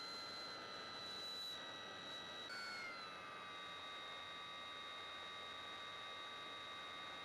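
Electric motor and propeller of an RC model plane whining steadily over rushing air. The pitch jumps up about two and a half seconds in and then slides down to a lower steady note as the throttle changes.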